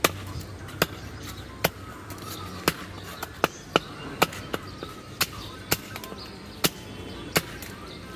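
Knife blade knocking on a wooden log chopping block while a large tilapia is scaled and cut: about a dozen sharp, irregularly spaced knocks over a low, steady background.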